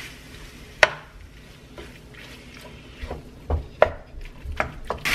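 A wooden spatula knocking and scraping against a nonstick frying pan while breaking up ground beef, with sharp taps about a second in and several more in the second half.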